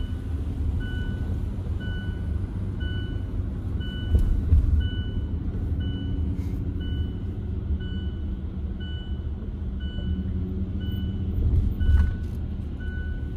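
Car cabin road noise while rolling slowly in traffic, with a short electronic beep repeating evenly throughout. Two heavy thumps, about four seconds in and near the end, are the loudest sounds.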